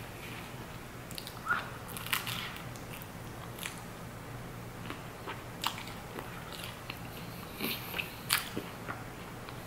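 Close-up chewing and biting of toast topped with jackfruit barbecue pulled pork: irregular crunches and wet mouth clicks, a few each second.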